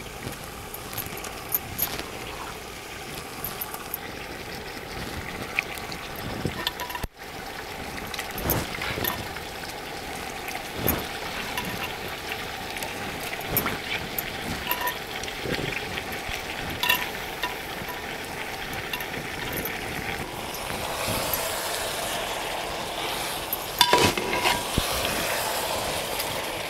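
Country-chicken pieces frying in oil in an aluminium pot, a steady sizzle with scattered clinks of a utensil against the pot. Over the last few seconds the chicken is stirred: the sizzle grows louder and there are several loud clinks of the spoon on the pot.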